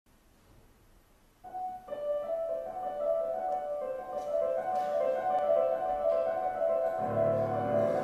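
Background piano music, starting about a second and a half in, with lower notes joining near the end.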